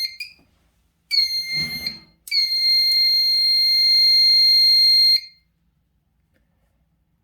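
Conventional fire alarm control panel's piezo buzzer sounding as the panel is powered back up. It gives a short high beep, then a beep about a second long, then a steady tone of about three seconds that cuts off sharply. A low knock sits under the second beep.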